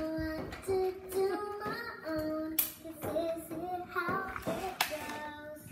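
A child singing a tune, holding some long notes, with a few sharp knocks in between.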